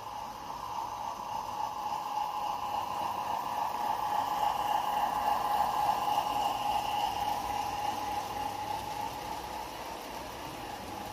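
Garden-railway model train passing on a raised wooden track: a steady whine from the locomotive's running gear over the noise of the wheels on the rails. It grows louder to a peak about six seconds in as the locomotive passes, then fades as the loaded wagons follow.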